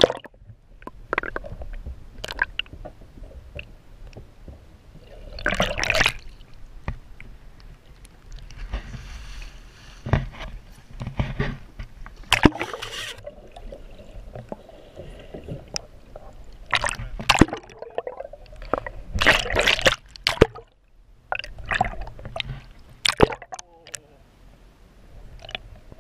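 Water sloshing and gurgling around a camera held underwater, with irregular splashes and sharp knocks; several louder rushing bursts come and go.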